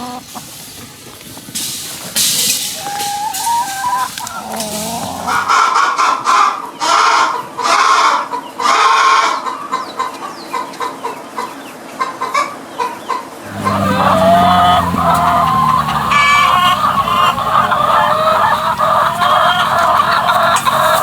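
Domestic chickens clucking and calling in several short clips one after another. Through the middle comes a run of loud calls repeated about once a second, then denser, continuous calling toward the end.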